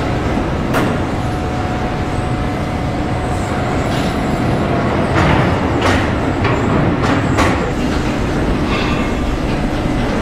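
Truck-mounted hydraulic knuckle-boom crane running: a steady, loud mechanical drone with a thin steady whine over the first half, and a few sharp metallic clanks around the middle.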